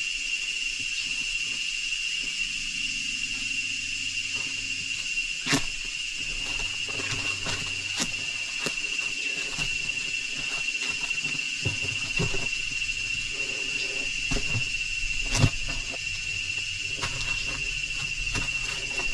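Steady high-pitched drone of rainforest insects, one unbroken tone, with a few sharp clicks and knocks, the loudest about five and a half seconds in and again about fifteen seconds in.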